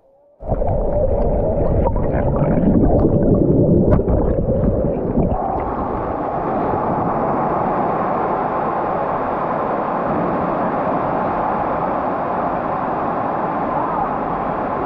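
Water heard underwater through a GoPro dunked in the stream at a waterfall: muffled gurgling and bubbling that starts suddenly, then after about five seconds a steady rushing of water.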